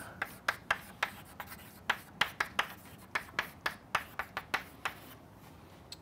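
Chalk writing on a chalkboard: an irregular run of sharp taps and short scratches as the letters are written, stopping about five seconds in.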